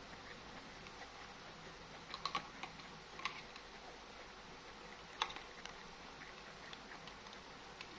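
Soft, scattered clicks and smacks of a baby macaque sucking at the nipple of a milk bottle: a quick cluster about two seconds in, another after three seconds, and the sharpest click a little past the middle, over a quiet room.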